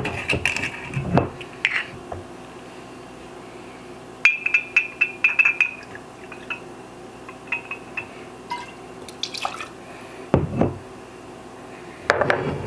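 A shot of rum poured from a bottle into a glass and tipped into the punch, with glass clinking and liquid splashing; a run of quick ringing clinks about four seconds in and a dull thud near the end.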